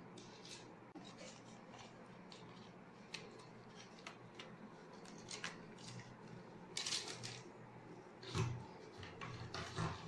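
Faint handling sounds of a plastic water bottle and nylon fishing line being picked up and pulled out on a table: scattered short clicks and rustles, the loudest a little past the middle.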